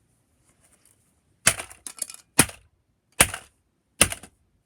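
Sharp strikes on a gutted vintage LED alarm clock, smashing it: a run of hard cracking blows beginning about a second and a half in, roughly one every 0.8 seconds.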